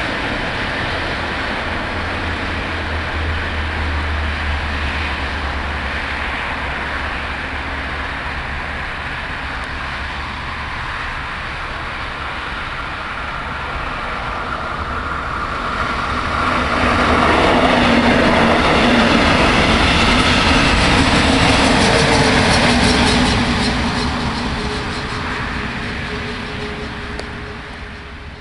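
A train running: a continuous rumble that swells to its loudest a little past halfway, then fades away near the end.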